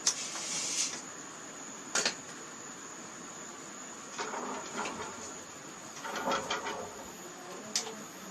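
Scattered light knocks, clicks and rattles of a pot and palm fruits being handled, with a brief hiss at the start, over a steady high-pitched whine.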